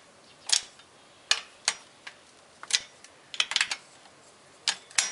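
Hand tools clicking against metal: a series of short, sharp metallic clicks at uneven spacing, some single and some in quick runs of three or four.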